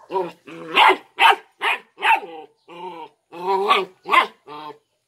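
Three-month-old Belgian Malinois puppy barking over and over, about ten short barks and yelps in quick succession.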